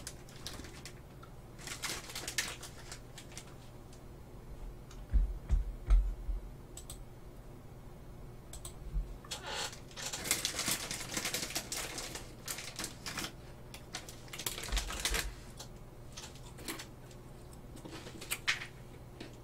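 Crisp crunching of chocolate-coated Pepero biscuit sticks being bitten and chewed, in clusters of quick sharp clicks with quiet gaps between. A few dull low bumps come about five seconds in.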